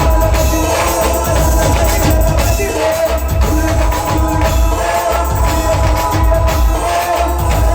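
Indian brass band playing an instrumental passage: horns holding a loud melody over a steady beat of drums and jingling percussion.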